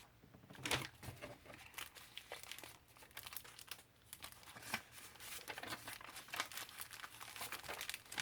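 Plastic packaging crinkling as it is handled, in many short irregular crackles.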